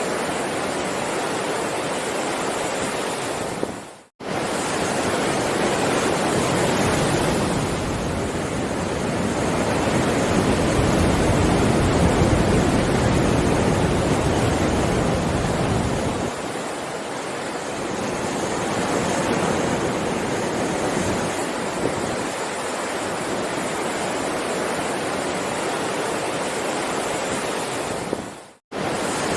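Heavy ocean waves breaking and washing in a continuous surf roar that swells louder for several seconds mid-way. The sound cuts out abruptly twice, briefly, about four seconds in and near the end.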